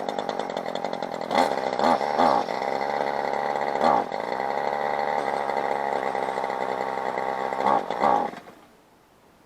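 Kawasaki KTF27A string trimmer's small two-stroke engine running, its revs dipping and rising several times as the throttle is worked, then stalling about eight and a half seconds in.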